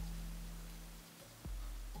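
Quiet background electronic music: low, sustained bass notes, one fading out about a second in and a new one starting about a second and a half in.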